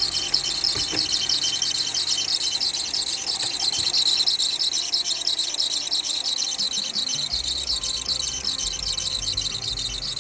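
Mercedes-Benz W204's engine drive belt squeaking with a rapid, continuous high-pitched chirping.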